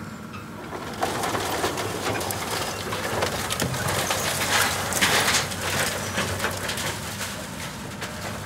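Komatsu 200 hydraulic excavator demolishing a house: wood and debris crunch and crackle as they are crushed, over the steady hum of the machine's running diesel engine. The crunching is loudest about five seconds in.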